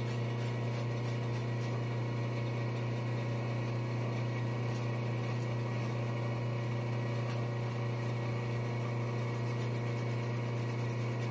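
Manual lathe running with a steady hum as a Scotch-Brite pad is held against the spinning knurled steel shaft to polish the knurls and clear away the chips.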